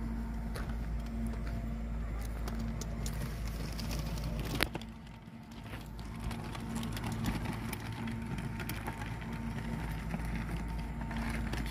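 Wind rumbling on a phone's microphone, with a low steady hum and scattered small clicks; one sharp click about four and a half seconds in, after which the sound drops briefly.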